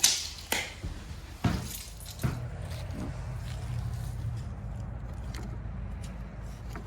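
Tools being handled, with a few light clinks and knocks in the first two and a half seconds, the first the loudest. A steady low hum follows.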